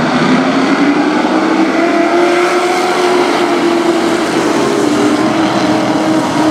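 A pack of short-track race trucks running at speed, many engines blending into one loud drone. The engine note rises over the first couple of seconds as the pack accelerates, then holds steady.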